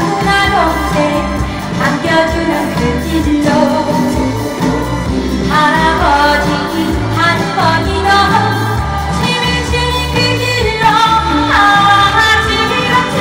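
A woman sings a Korean trot song into a handheld microphone over up-tempo backing music with a steady bass beat. Several of her phrases end in downward pitch slides.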